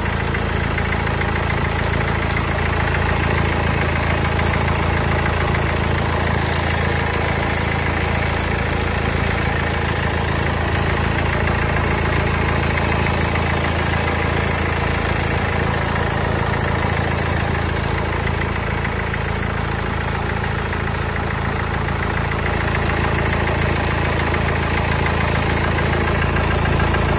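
Mercedes-Benz OM651 four-cylinder diesel engine idling steadily, with an abnormal noise in its running that the owner cannot identify.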